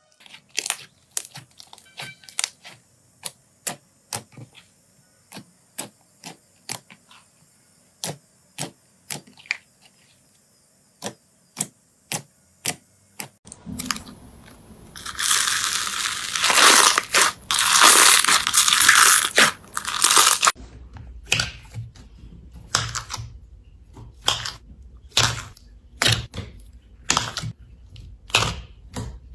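Slime being worked by hand: a run of sharp, sticky clicks and pops, one or two a second. About halfway through comes a loud crackling, crunching stretch lasting about six seconds, then the separate clicks return.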